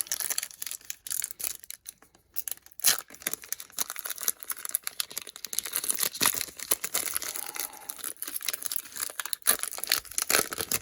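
Crinkling and tearing of a foil Pokémon booster-pack wrapper as it is opened, with the cards inside being handled; an irregular run of crackles and rustles.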